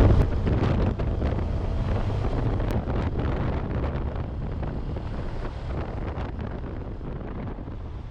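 Wind buffeting the microphone of a camera on a motorcycle moving at highway speed, a steady rushing noise strongest in the low end, fading gradually quieter.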